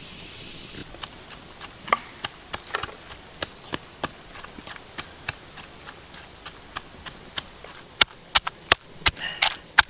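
Wooden pestle pounding red chillies in a wooden mortar, knocking about three times a second, the strokes louder and sharper in the last two seconds. A steady hiss from the wood fire and steaming wok fades out in the first second.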